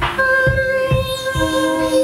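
Live improvised ambient noise music from a band of keyboards, electronics and electric guitar. Several long notes are held steady over a low thudding beat of a little over two thumps a second.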